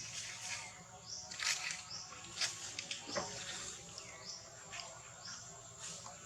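Short, high-pitched animal chirps, each a quick falling note, repeating about twice a second, with scattered rustling and clicks.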